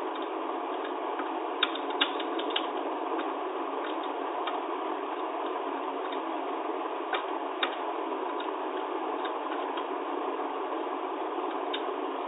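Typewriter mechanism clicking irregularly, with a few louder clicks about two seconds in and again about seven seconds in, over a steady hiss.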